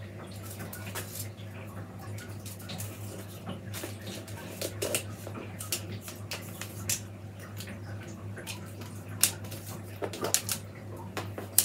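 Willow rods rustling, creaking and clicking as they are bent and wound round into a wreath hoop, with a few sharper clicks near the end, over a steady low hum.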